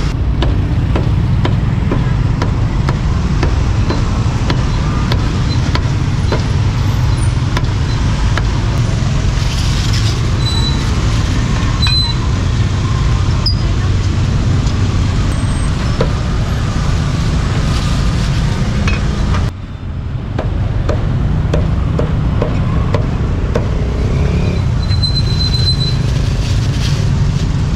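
Steady rumble of street traffic, with scattered short knocks over it. The sound drops out briefly about twenty seconds in.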